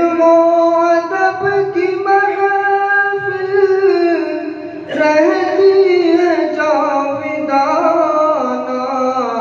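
A naat: a single voice singing long, held notes with wavering ornaments, starting a new phrase about five seconds in.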